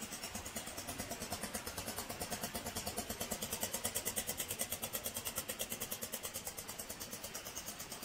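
Honda XR250 Motard's air-cooled single-cylinder four-stroke engine idling through an aftermarket Barrel 4 silencer: a steady, even beat that grows somewhat louder in the middle and eases off again.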